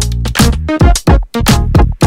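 Electronic dance music with a strong drum-machine beat and deep bass.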